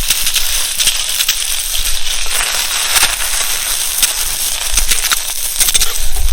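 Dal bori (sun-dried lentil dumplings) frying in hot oil in a kadai, a steady sizzle with many small crackles and pops.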